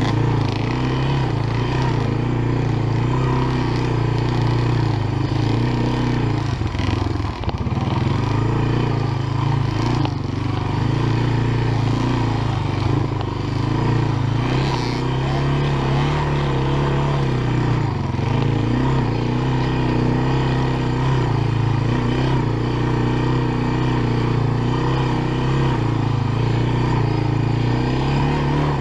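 Honda FourTrax ATV engine running under the rider on a dirt trail, its note holding fairly steady with small rises and falls of the throttle and a short dip about seven seconds in.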